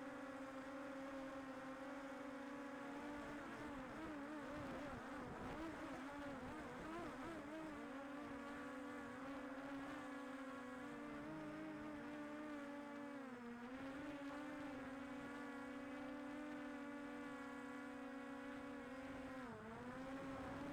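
Small quadcopter drone's propellers humming steadily, the pitch wavering for a few seconds and dipping briefly twice as the motors change speed.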